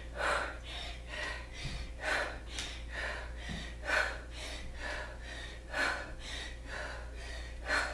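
A woman breathing hard during kettlebell goblet squats: a sharp, louder exhale about every two seconds, one per squat, with quicker breaths in between.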